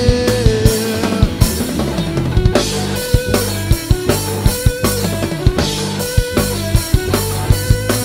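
Rock band playing live: drum kit, electric bass and electric guitar in an instrumental passage without vocals, the drums keeping a steady beat.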